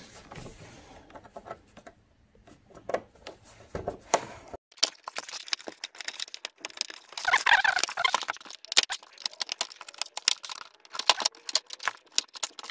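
The plastic latches of an LG 32LF580U TV's backlight frame clicking and snapping as they are pried loose one after another with a plastic pry tool. The clicks come thick and fast in the second half, with a longer creak about seven seconds in.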